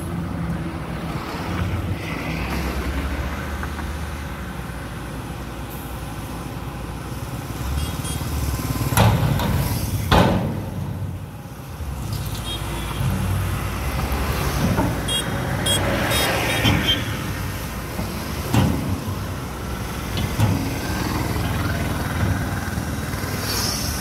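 Heavy diesel engines of a tipper truck and a Tata Hitachi excavator running steadily, with a few sharp knocks, the loudest two about nine and ten seconds in.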